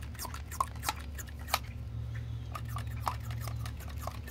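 Warm soda degassing under vacuum in a sealed mason jar: irregular ticks and pops of bursting bubbles, several a second, over a low steady hum. The carbonation still coming out is what keeps the jar from holding its vacuum.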